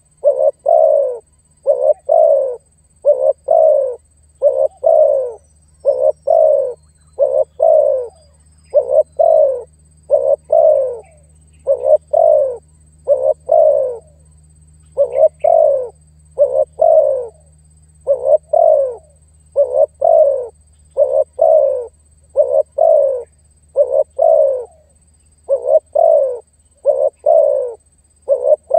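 Male spotted dove (tekukur) calling steadily: short, low coos in pairs and triplets, each dipping in pitch, repeated about every second and a half, with a faint steady hum beneath.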